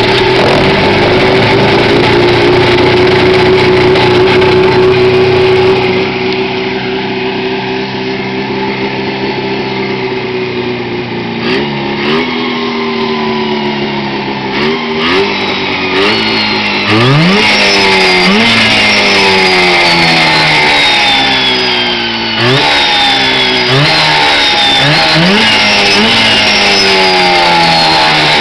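Cuyuna 440 two-stroke twin (a former ultralight-aircraft engine) in a 1973 Attex 440 Thunderchief, running at a steady fast idle for about ten seconds after it catches. Then the throttle is blipped again and again, each rev shooting up quickly and falling back, with the blips coming faster in the second half. Fed by a new 36mm Mikuni carburettor, it revs freely without hesitation, which the owner takes as a sign the carb is well matched.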